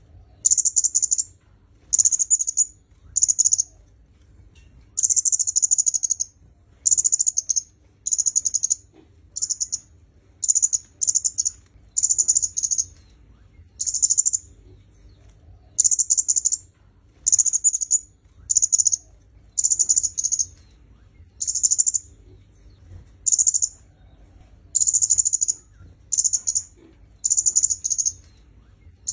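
Kemade kepala merah, a red-headed flowerpecker, calling: short, thin, high-pitched notes repeated about once a second, sometimes two in quick succession.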